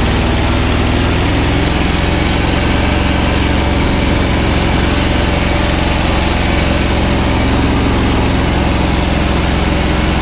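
Kubota L175 compact tractor's small diesel engine running steadily while the tractor is driven along at speed.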